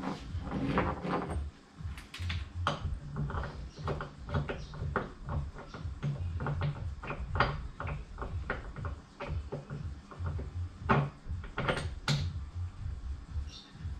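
Irregular metal clicks, clinks and knocks of hand work at the mounts of a Chevrolet 350 V8 hanging from an engine hoist, the sharpest knocks about eleven and twelve seconds in, over a low rumble.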